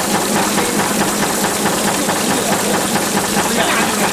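Mineral shaking table running: a steady hum with a rapid, even mechanical clatter from its reciprocating drive head, over the wash of water flowing across the deck.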